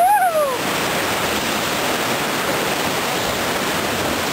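Whitewater rapids rushing and churning loudly around a raft. A short whoop from a rafter rises and falls at the very start.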